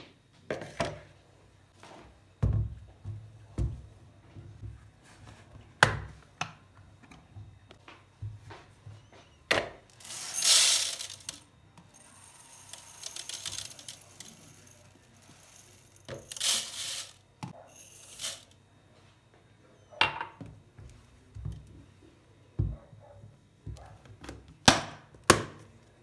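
Dry rice poured from a plastic storage canister into a mesh sieve over a plastic bowl, in several short rushing pours, between clicks and knocks of the plastic containers and lid being handled.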